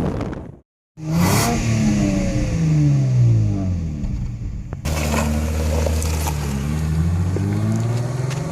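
Nissan Maxima's engine heard from outside as the car drives: its note falls as it eases off, holds steady, then rises again as it revs up toward the end. The sound cuts out briefly just under a second in.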